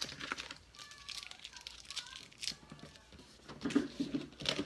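A cardboard box being handled and opened by hand: scattered rustling, scraping and tapping of the cardboard and packaging, with a few louder knocks near the end.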